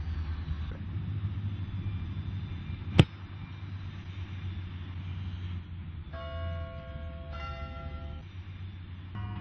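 A football kicked for a field goal: one sharp thud of the foot striking the ball about three seconds in, over a steady low rumble. Ringing, bell-like tones sound for about two seconds later on.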